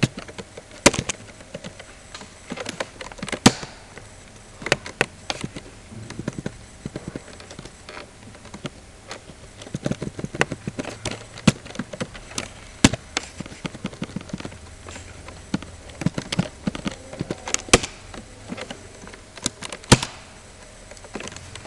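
Computer keyboard and mouse clicking: irregular single keystrokes and short runs of them, with pauses in between.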